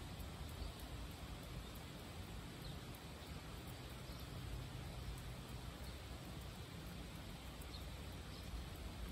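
Steady rainfall, an even soft hiss of drops falling on foliage and the ground.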